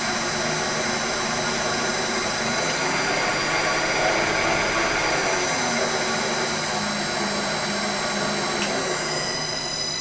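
Wood lathe motor running off a TECO Westinghouse L510 variable-frequency drive, with a steady high-pitched electrical whine over the motor hum. The drive's carrier frequency is set to its lowest value, and the whine is even worse at that setting.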